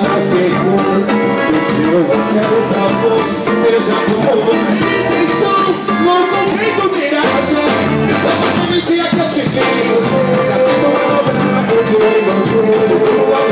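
Live band music played loud, a male lead vocal singing into a microphone over cavaquinho, guitar and drums.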